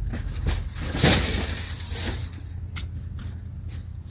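Packaged groceries being handled: a loud rustle about a second in and a few light knocks, over a steady low rumble.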